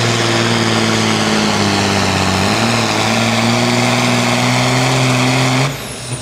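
Diesel engine of a John Deere farm tractor running hard at a steady pitch while it pulls a weight-transfer sled. Near the end the engine note drops away suddenly and a high whistle falls in pitch.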